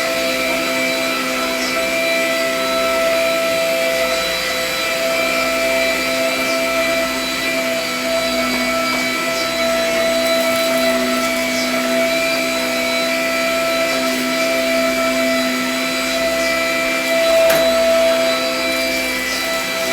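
Vacuum cleaner running steadily, its motor whine shifting slightly in pitch as it is pushed over the floor, with a brief bump about three quarters of the way through.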